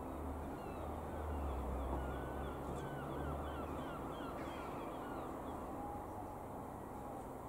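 Birds calling in quick runs of short chirps, mostly in the first half, over the low, steady drone of a high-flying single piston-engine light aircraft (Cessna U206F Stationair), which fades a little past halfway.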